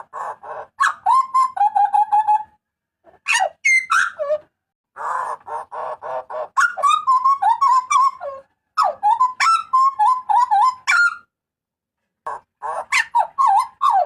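Hooded butcherbird (jagal papua) calling loudly: bursts of rapid, repeated ringing notes mixed with whistled glides, in phrases of one to three seconds with short pauses between them.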